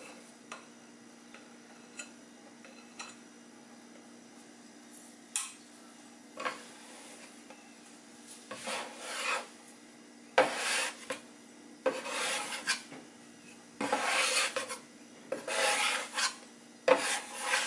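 Metal bench scraper scraping across a wooden board as it pushes and turns a ball of sourdough dough to round it. A few light taps come first, then a run of repeated scraping strokes that grow louder through the second half.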